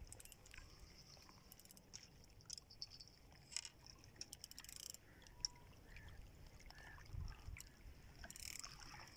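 Near silence: faint outdoor ambience with scattered small clicks and a low rumble.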